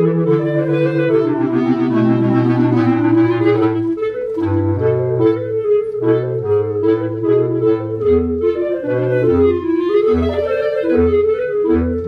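Clarinet trio of two clarinets and a bass clarinet playing together. For about the first four seconds the parts hold long notes; after that the bass clarinet plays short, separate low notes under moving lines in the two upper clarinets.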